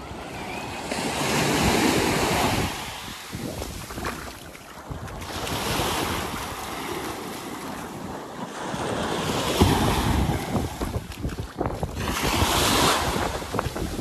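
Small waves washing up on a sandy beach, the surf's hiss rising and falling in swells every few seconds, with wind buffeting the microphone.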